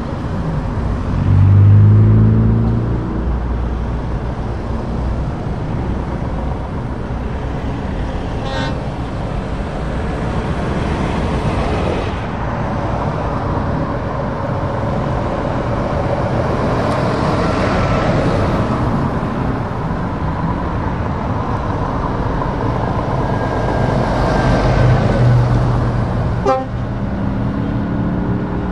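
Road traffic passing close by: cars and a line of lorries, with engine and tyre noise. A loud, low engine drone falls in pitch as a vehicle goes by about two seconds in, and another low engine drone passes near the end.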